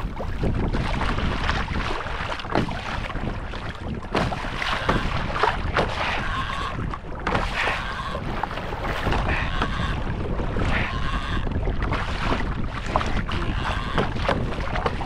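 Wind buffeting the microphone over waves slapping and splashing against a fishing kayak's hull, with many irregular knocks.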